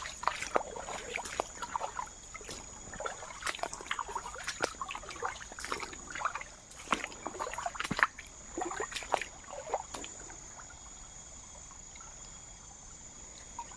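Water splashing and trickling in irregular bursts, with sharp clicks, for about ten seconds, then settling to a quieter steady trickle. A steady high-pitched tone runs underneath throughout.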